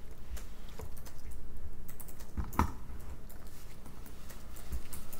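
Light, irregular clicking and tapping, with one louder click about two and a half seconds in.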